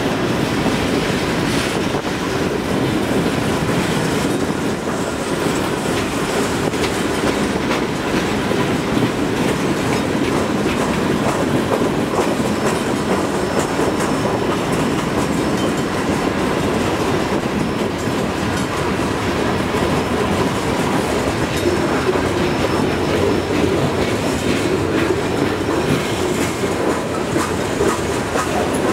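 Freight cars of a long mixed freight train rolling past: a steady rolling noise of the wheels on the rails, with scattered clicks from the wheels.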